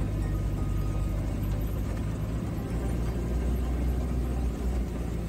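Maruti Gypsy 4x4 driving off-road in four-wheel drive: the engine running with a steady low drone and a haze of road noise.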